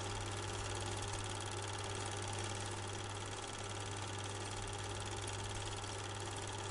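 A film projector running: a steady motor hum with a fast, even mechanical clatter.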